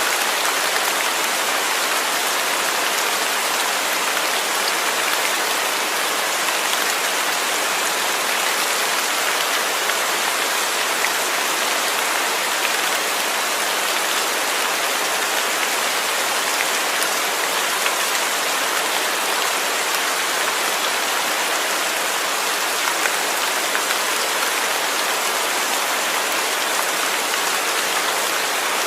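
Steady rain falling, an even hiss of many drops on a surface with no change in strength.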